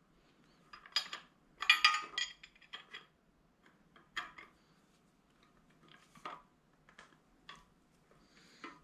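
Irregular metal clinks and clicks as a wrench tightens the nut on a cam bearing installer's threaded rod, with the busiest cluster about two seconds in.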